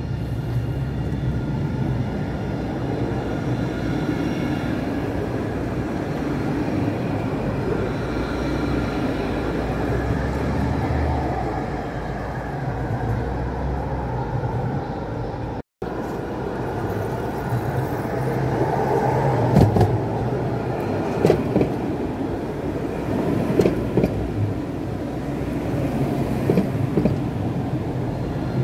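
Electric tram running: a steady low rumble with a faint electric whine in the first half. After a brief dropout about halfway, a run of sharp knocks and clacks.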